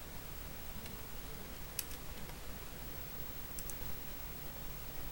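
Faint room hiss with a few small clicks: a sharper one about two seconds in and a quick pair just before four seconds in.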